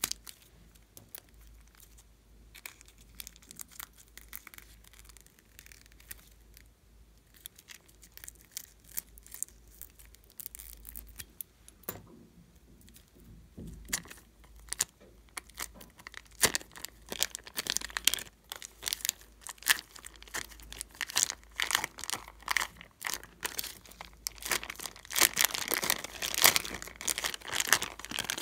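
Thin plastic piping bag crinkling and tearing as it is peeled off the slime inside it: a stream of crackles, sparse at first and louder and denser through the second half.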